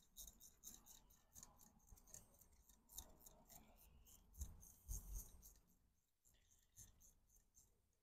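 Faint, rapid, even clicking of a socket ratchet winding a brake-pad retaining pin into a motorcycle front brake caliper, with a few light knocks of metal on metal. The clicking stops about six seconds in.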